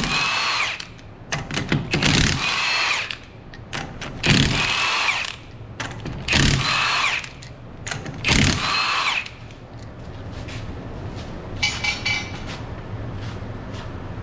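A handheld power tool zipping off the five 19 mm lug nuts of a car's rear wheel, one nut at a time: five short runs about two seconds apart, each starting with a rising whine. A brief rattle follows a few seconds after the last one.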